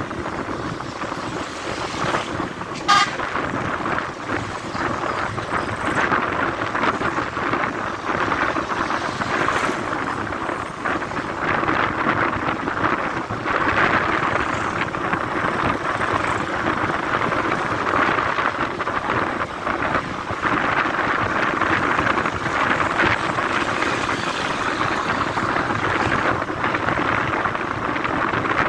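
Steady road noise from a moving vehicle, with one short vehicle horn toot about three seconds in.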